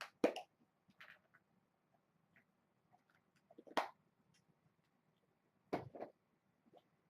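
Kittens playing: a few scattered soft thumps and scuffles, the loudest near the start, a little before four seconds in, and twice around six seconds in.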